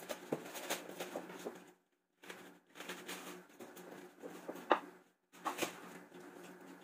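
Kitchen knife cutting a head of cabbage on a cutting board: scattered sharp knocks of the blade hitting the board, the loudest about two-thirds through, with crisp leaves crunching between them. A steady low hum runs underneath, and the sound cuts out briefly twice.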